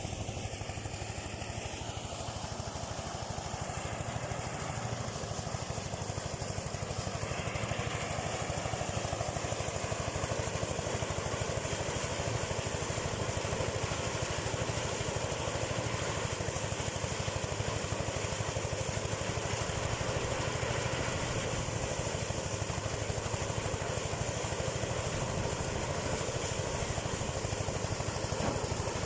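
Engine-driven rice thresher running steadily: a small engine's continuous drone with a fast, even pulse.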